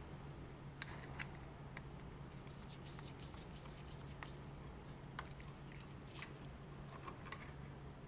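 Faint, scattered clicks and scrapes of a screwdriver and copper wire on the screw terminals of a three-way switch as the traveler wires are hooked on and tightened down, over a steady low hum.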